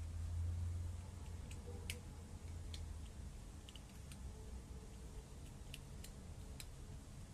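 A kitten eating from a dish: faint, irregular clicks of chewing, a dozen or so spread unevenly over a low steady hum that is strongest in the first second.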